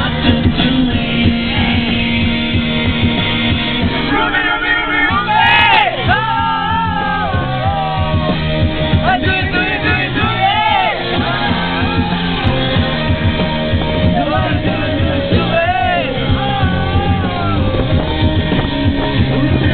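Loud rock music with a singing, shouting voice that comes in about four seconds in.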